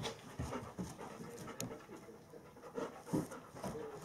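Bernese mountain dog panting in quick, uneven breaths, with a sharp click about a second and a half in.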